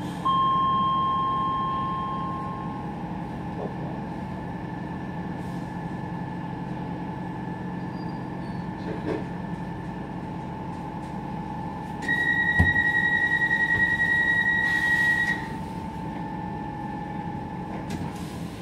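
Docklands Light Railway train running, heard from inside: a steady electric motor whine over rumble from the track. A loud, high, steady squeal starts about two-thirds of the way in and holds for about three seconds.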